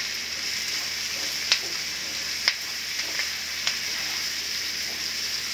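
Sliced onions and green capsicum stir-frying in oil on a high flame: a steady sizzle, with a few sharp clicks as they are stirred against the pan, the loudest about one and a half and two and a half seconds in.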